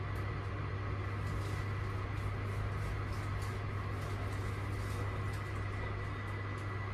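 1995 GoldStar passenger lift car travelling upward: a steady low hum with a thin high whine above it and faint light ticks.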